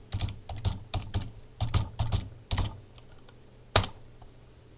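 Typing on a computer keyboard: a quick run of about a dozen keystrokes over the first two and a half seconds, then, about a second later, one louder single key press, the Enter key sending the command.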